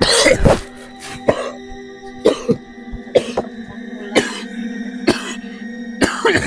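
A man coughing and clearing his throat in short loud fits about once a second, over steady ambient background music.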